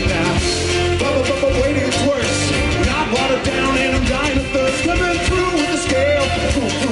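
Live rock band playing through a PA: drum kit, bass and guitars, with a lead line that bends up and down in pitch over a steady beat.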